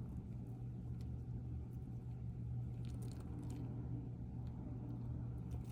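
Faint light clicks of a necklace chain and clasp being handled, over a steady low hum.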